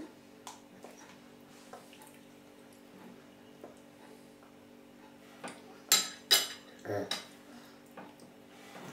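A metal spoon clinking sharply against a ceramic plate twice about six seconds in, with a few faint taps of a spoon earlier on, over a low steady hum.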